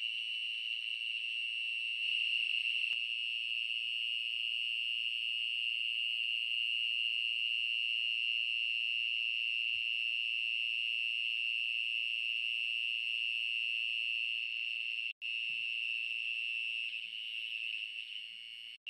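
Night insects, such as cicadas or crickets, keeping up a steady high-pitched drone that cuts out for an instant twice near the end.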